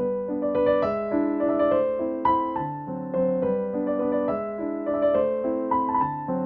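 Background piano music: a gentle melody of single notes struck one after another over held lower notes.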